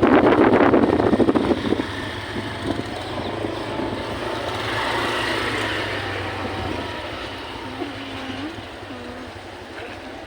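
Wind buffeting the microphone, dying down after about two seconds, over the steady drone of a running engine.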